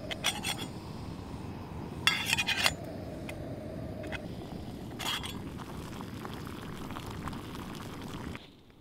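Metal lid of a camping pot clinking and rattling against the pot as it is handled, in short groups with the loudest about two seconds in. Under it a steady rushing from the gas stove burner runs on and cuts off abruptly shortly before the end.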